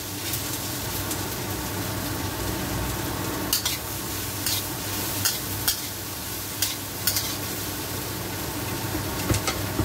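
Bell pepper and onion strips sizzling in a hot steel wok, with a metal spatula scraping and clinking against the wok at irregular moments as they are stirred.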